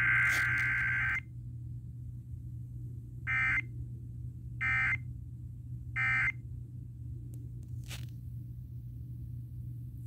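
Emergency Alert System data tones for a weekly test, heard through a small FM radio's speaker. A long warbling digital burst ends about a second in. Then come three short, equal bursts a little over a second apart, the pattern of the end-of-message code. A low steady hum runs underneath, and a few faint clicks come near the end.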